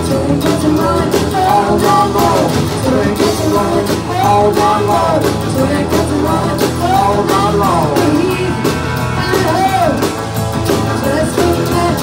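Live rock band playing: a woman sings the lead over strummed acoustic guitar, electric guitar, bass guitar and a drum kit.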